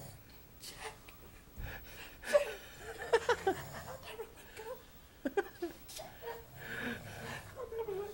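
Stifled, wheezy laughter in short bursts, about two seconds in and again near five seconds, over a sleeping man's low snoring.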